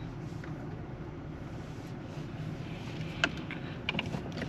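Low steady rumble of the Jeep Gladiator Willys running, heard inside its cabin, with a few light clicks in the last second and a half.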